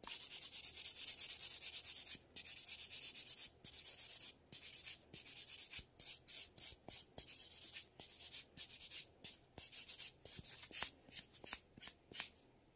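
Sponge nail buffer rubbed back and forth over a fingernail, a dry high hiss of sanding: buffing the nail down to show up the gel left after a drill removal. One long steady stroke at first, then separate strokes that grow shorter and quicker toward the end.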